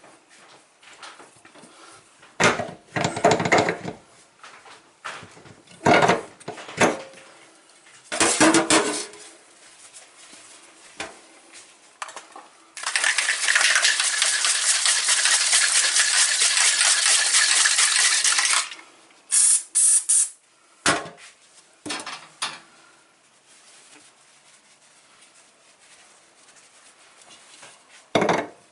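Metal faucet parts knocking and clinking as they are handled, with a loud, steady hiss lasting about six seconds midway, then a few more short clatters.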